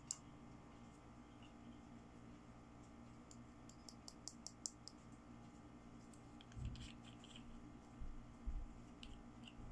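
Quiet handling of a small plastic toy nail polish bottle: a quick run of faint sharp clicks and ticks about four seconds in, then a few soft bumps in the last three seconds as the cap is twisted off.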